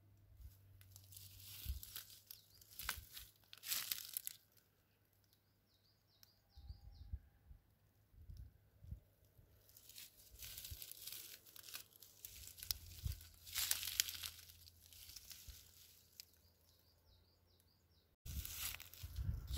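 Footsteps crunching and rustling through dry grass and leaf litter in uneven spells. A small bird sings a short high warbling phrase twice, in the lulls between steps.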